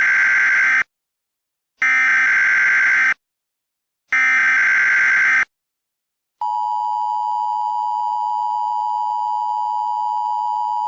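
Emergency Alert System broadcast tones: three loud bursts of the digital header, each a little over a second long, then about six seconds in the steady two-tone attention signal begins and holds.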